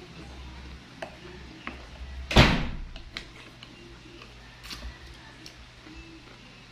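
Eating sounds: chewing, with small clicks of wooden utensils in a glass bowl. One loud knock comes about two and a half seconds in.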